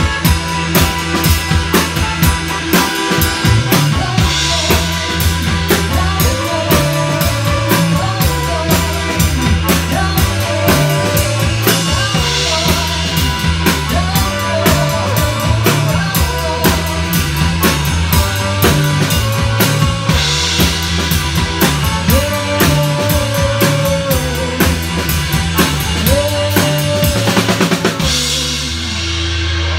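Live rock band playing: a woman singing over drum kit, bass and electric guitar, with a steady driving beat and a fast drum roll near the end.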